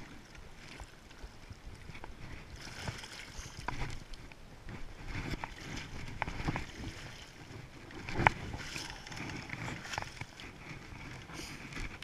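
Splashing and sloshing of water as a big brown trout is brought into a wooden-framed landing net, over the steady rush of the river. A sharp knock about eight seconds in is the loudest sound.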